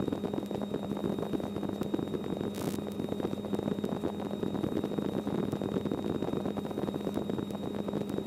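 Small helicopter in flight, its engine and rotor running steadily as heard from inside the cockpit, with a brief hiss about two and a half seconds in.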